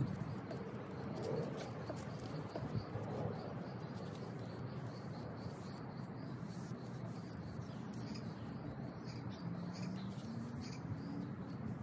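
Faint outdoor ambience: a paintbrush stroking paint onto a dresser's MDF top, with birds calling in the background.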